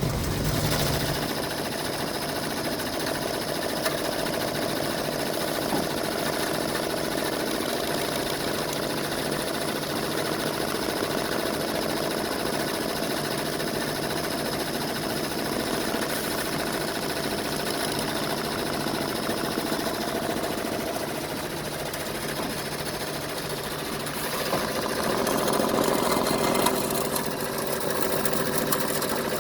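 A machine running steadily with a grinding noise over a steady hum; the sound swells for a few seconds near the end.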